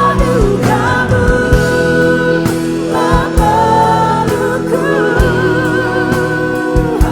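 Contemporary worship song: a vocal group sings a melodic line over a full band, with drum beats and bass.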